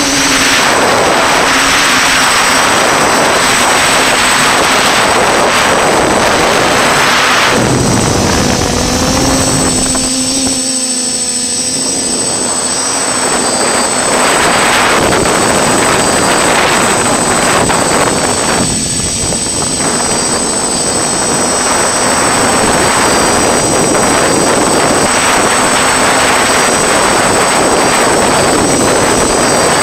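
FPV racing drone's motors and propellers whining, mixed with wind rushing over the onboard camera. The pitch shifts with the throttle, easing off briefly about ten seconds in and again near nineteen seconds.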